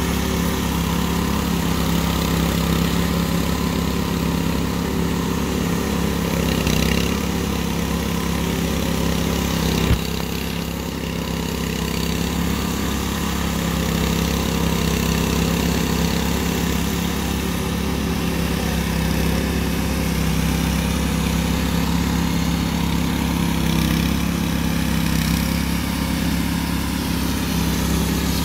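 Several walk-behind concrete power trowels running steadily, their engines making an even hum, with one short knock about ten seconds in.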